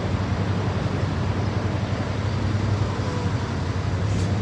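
Steady road traffic noise: a continuous low hum of engines and tyres from passing cars and trucks.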